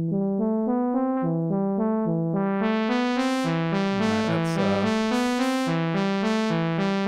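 Roland SH-32 wavetable synthesizer playing a repeating sequence of short sawtooth notes as its filter and envelope depth are adjusted by hand, dry with no chorus. About two and a half seconds in the tone opens up and gets much brighter, with a brief squelchy wobble a little later.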